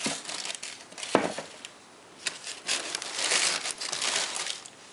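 Tissue paper crinkling and rustling in a cardboard shoebox as a sneaker is unwrapped and lifted out. There is one sharp tap about a second in, and a denser spell of crinkling from about three to four and a half seconds.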